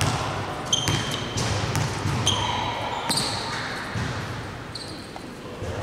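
A basketball being dribbled on an indoor gym floor, bouncing about once a second, with short high sneaker squeaks from players moving on the court.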